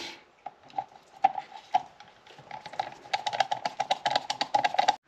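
A screwdriver driving small screws into the plastic housing of a BMW E60 steering-column switch cluster: sparse clicks at first, then a quick even run of clicks about ten a second from about three seconds in, which stops abruptly.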